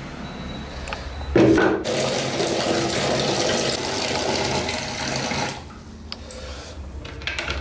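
Water from a wall tap running into a plastic bucket: it starts suddenly about a second and a half in with a splash, runs steadily as the bucket fills, then stops about two seconds before the end. A few light knocks follow.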